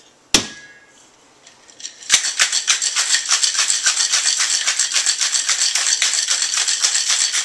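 Ice rattling inside a steel cocktail shaker tin capped on a mixing glass, shaken in a rapid, even rhythm from about two seconds in. A single sharp knock comes just before, near the start.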